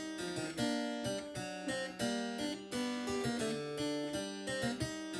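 Harpsichord playing a ricercare in several contrapuntal voices, a continuous stream of overlapping plucked notes.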